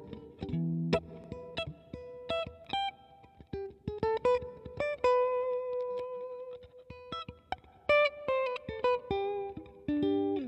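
Electric guitar played through a Digitech RP55 multi-effects processor: a melodic line of single picked notes, with one note held for a couple of seconds in the middle.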